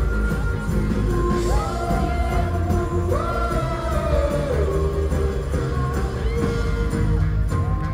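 Live rock band playing with keyboards, piano, drums and guitars under lead and backing singing, the voices holding several long notes.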